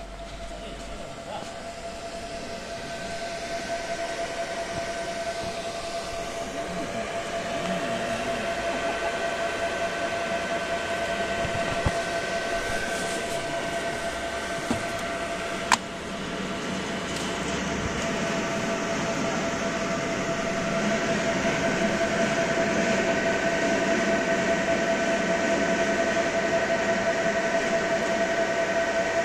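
Steady hum of a running CO2 laser marking machine, with one held whine over a noisy haze that grows louder past the middle; one sharp click a little past halfway.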